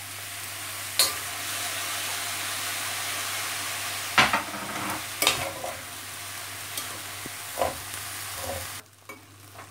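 Rice, vegetables and sliced sausage frying in a stainless steel pan: a steady sizzle while a metal spatula stirs and scrapes, with a few sharp knocks of the spatula against the pan. The sizzle cuts off suddenly near the end.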